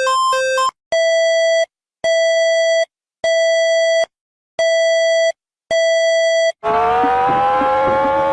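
Electronic emergency alarm tones: a quick beeping alternating between two pitches, then five long, evenly spaced beeps on one buzzy pitch. Near the end a siren-like tone starts and slowly rises in pitch.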